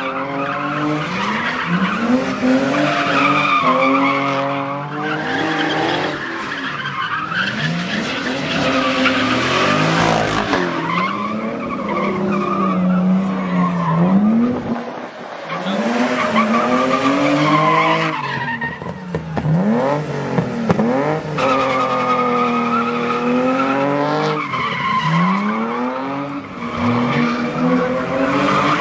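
Car engines revved hard, their pitch climbing and dropping again every second or two, sometimes two at once, with tyre noise from cars sliding sideways in drifts.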